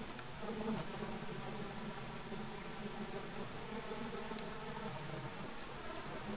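Steady buzzing hum with a few faint clicks.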